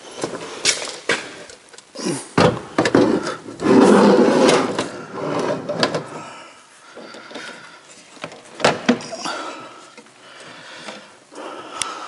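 A compact built-in oven being set into a wooden cabinet housing: a series of knocks and bumps of metal against wood, with a loud sliding scrape about four seconds in as it goes into the opening, then a few lighter knocks as it is pushed home.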